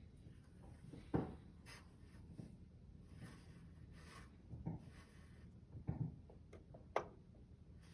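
Light handling sounds from computer parts being fitted: four short knocks and clicks, the sharpest about a second in and another near the end, over faint rubbing.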